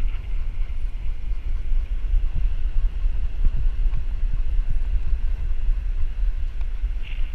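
Wind buffeting the microphone of a GoPro riding on a moving whippet's back: a loud, steady low rumble.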